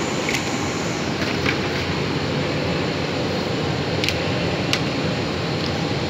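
Steady background hiss with a few short, sharp clicks as a PVC socket coupling is worked onto a PVC conduit pipe.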